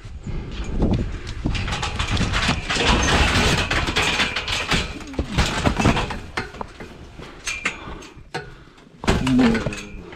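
A cow struggling while being handled: repeated knocks and rattling clatter, with a short pitched call about nine seconds in.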